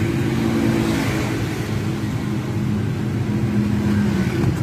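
Road traffic: a motor vehicle engine running steadily, a low hum with a held tone that dies away about four seconds in.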